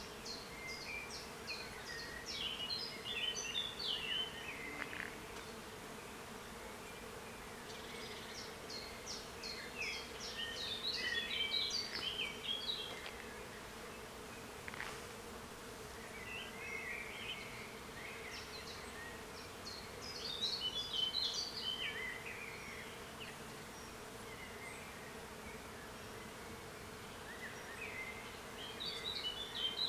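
A songbird singing: repeated phrases of quick high notes that fall away in pitch, one every several seconds. A faint steady hum lies underneath.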